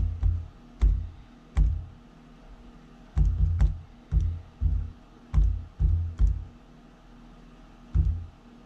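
Keys of a handheld calculator being pressed one by one on a desk, about a dozen short taps with a low thud under each, in irregular groups with a short pause near the end.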